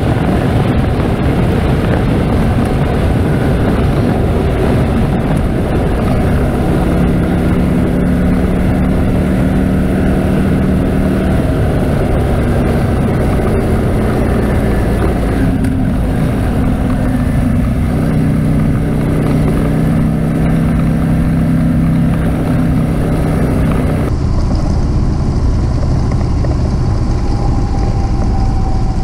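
Harley-Davidson Road King's V-twin engine running under way, with heavy wind noise on the microphone. The engine note shifts in pitch several times, and near the end the wind hiss drops away.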